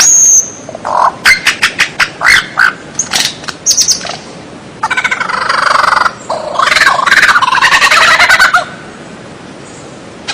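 Songbird singing: a high thin whistle at the start, a string of short, sharp notes, then a long, rapid, harsh chattering that stops about a second and a half before the end.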